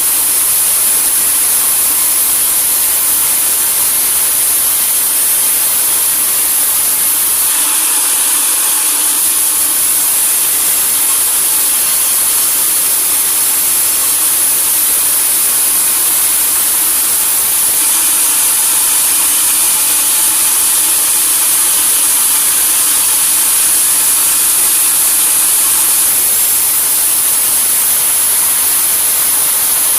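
Sawmill saw running and cutting timber logs: a steady, loud, hissy machine noise that shifts slightly about 8 and 18 seconds in.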